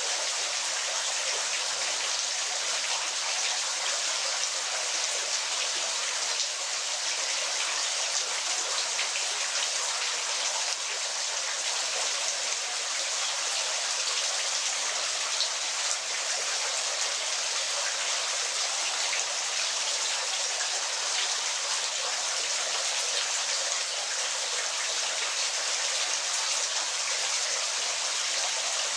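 Waterfall: falling water splashing in a steady hiss, with many fine droplet splashes and little low rumble.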